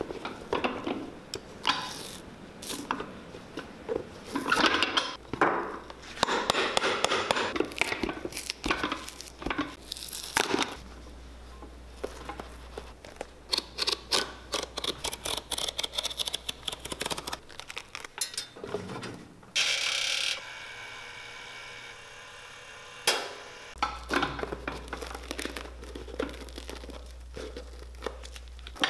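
Cobbler's hand tools at work on a leather-soled dress shoe: irregular scraping, cutting and knocking, with a few seconds of steady mechanical hum a little past the middle. Near the end a knife scrapes out the shoe's old cork filler.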